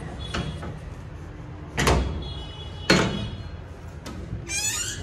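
Steel grille gate being unbolted and pulled open: two sharp metal clanks about a second apart, each with a short ring. Near the end a dog starts to whine.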